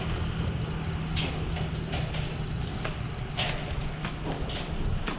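Evening chorus of crickets: a steady high-pitched trill, with a few scattered clicks and knocks over a low rumble.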